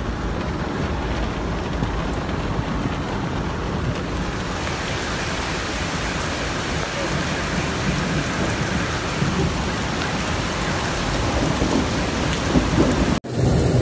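Heavy downpour: a steady, even hiss of rain falling hard, broken off sharply near the end.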